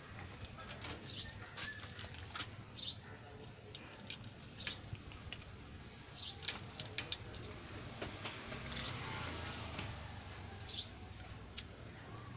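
A cat eating scraps from a metal plate: an irregular scatter of short chewing and clinking clicks. Small birds chirp briefly in the background every few seconds over a low steady hum.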